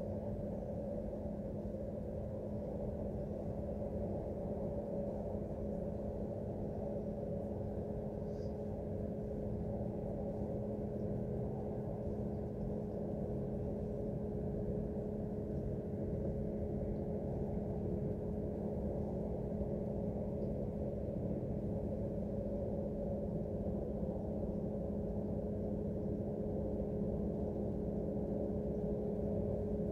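Steady industrial roar from a casting plant, a low rumble with two steady humming tones over it, which the recorder attributes to failing equipment.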